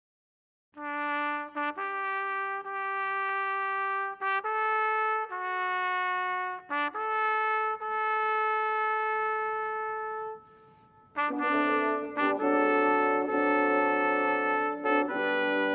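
Solo trumpet playing a slow melody of long held notes. After a short pause about eleven seconds in, it is joined by a fuller brass ensemble playing together.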